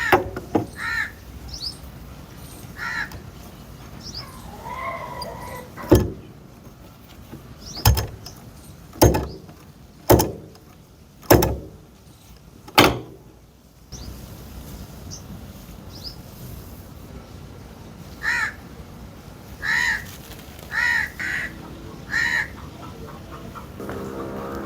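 Crows cawing, a few short calls at a time, early on and again over the last seconds. In the middle comes a series of six sharp knocks, about a second or so apart.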